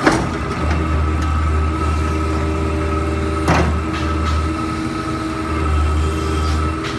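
Kobelco SK60-2 mini excavator's diesel engine running under hydraulic load as the arm and bucket work, its low drone swelling and easing, with a steady high whine above it. Two sharp knocks from the machine, one at the start and another about three and a half seconds in.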